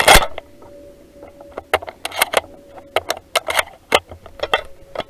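One loud shotgun shot right at the start, followed by scattered irregular clicks and knocks from the gun being handled as the shooter moves through the stage.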